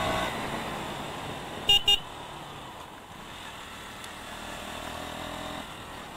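KTM Duke 200 motorcycle coasting with the throttle closed, its single-cylinder engine dropping to a low, quieter run as the bike slows. Two short horn toots sound close together about two seconds in.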